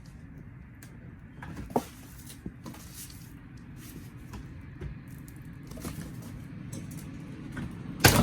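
Small rocks and gravel trickling and clicking out of a car's rear diffuser as it is worked loose, with scattered light ticks and one loud clatter near the end.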